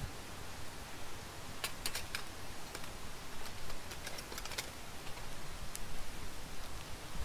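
Small campfire crackling: a few sharp pops and clicks, scattered irregularly over a faint steady hiss.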